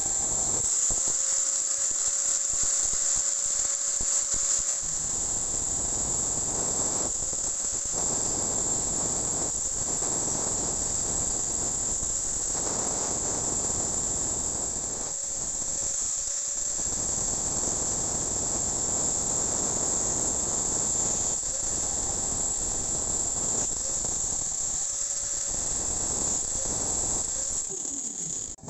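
Electric angle grinder with a thin cutting disc cutting square steel tubing: a steady high whine over the rough grating of the disc in the steel. The grating thins out briefly several times while the whine carries on, and the grinder stops just before the end.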